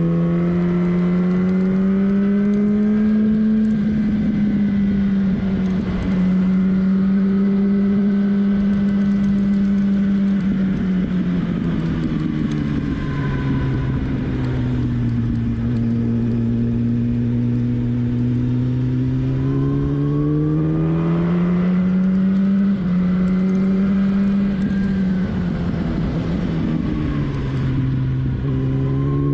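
Motorcycle engine heard from on board while riding, its note rising and falling slowly as the throttle is opened and closed. The note sinks lowest in the middle, climbs again about two-thirds in, and dips once more near the end, over a steady rush of wind.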